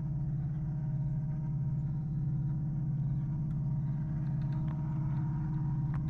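Distant diesel locomotive engines running: a steady low drone with several steady tones humming above it.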